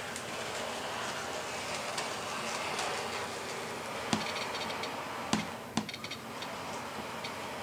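HO scale model diesel locomotive running along the layout track at its top speed setting: a steady whir, with a few sharp clicks between about four and six seconds in.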